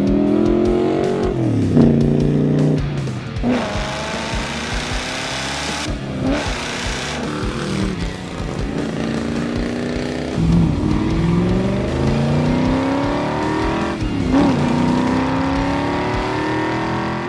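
Classic muscle car engines accelerating hard under heavy throttle, each run climbing steadily in pitch and then dropping at a gear change before climbing again, several times over, with music underneath.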